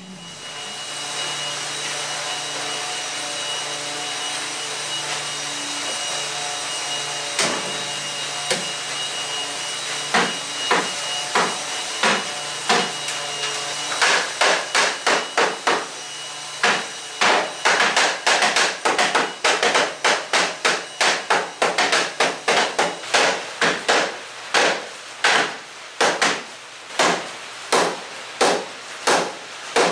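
Repeated hammer blows on a timber beam, driving it down into its joint: a few scattered strikes at first, then from about halfway quick runs of blows, several a second. A steady hum runs under the first half and stops about halfway.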